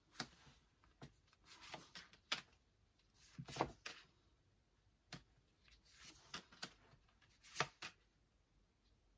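Tarot cards being drawn off a deck and laid down one by one on a board: faint, scattered soft slides and taps, the loudest a little over three and a half seconds in.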